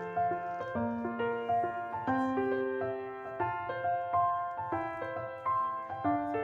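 Background piano music: a gentle melody of held notes over a steady low pulse.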